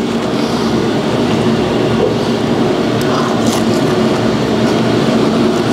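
Steady mechanical drone with no break, and a couple of faint clicks.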